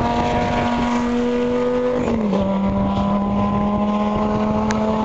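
Lamborghini engine accelerating hard at high revs, its note climbing steadily and dropping sharply on an upshift about two seconds in, then climbing again until another upshift at the very end.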